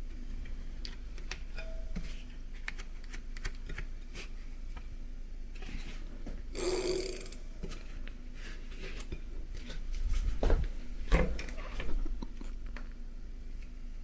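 Hands working on a bicycle: scattered light clicks and knocks of parts and tools, with a short hiss of noise about seven seconds in and a few sharper knocks near the end.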